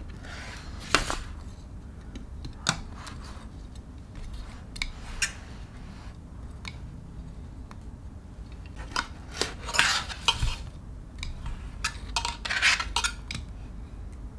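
Metal tongs clinking and scraping on a metal baking sheet as roasted spaghetti squash halves are flipped, with a fork scraping at the squash. Scattered single clicks at first, then denser clusters of clinks and scrapes about two-thirds of the way through and near the end.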